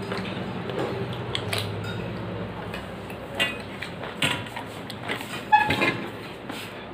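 Eating rice by hand from a steel plate: fingers mixing and scooping food, with a few sharp ringing metallic clinks against the plate in the second half, the loudest about five and a half seconds in.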